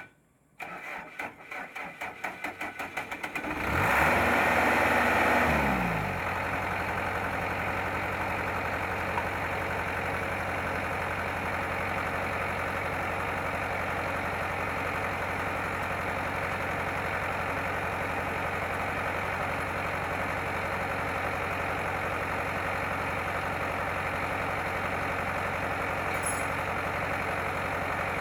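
Combine harvester engine being cranked by the starter in rapid even pulses. It catches about three and a half seconds in, runs fast and loud for a couple of seconds, then drops to a steady idle.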